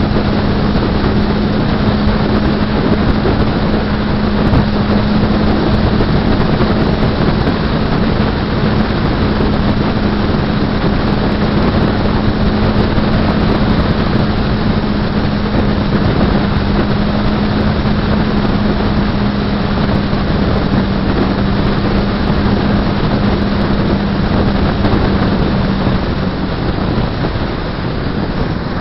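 Suzuki GSX-R 600's inline-four engine holding a steady drone at cruising speed, heavily overlaid by wind buffeting the action camera's microphone. The engine note drops slightly near the end.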